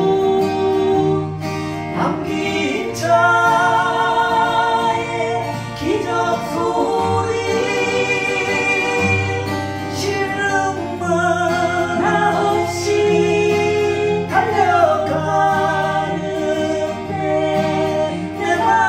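A song: a sung melody over acoustic guitar accompaniment.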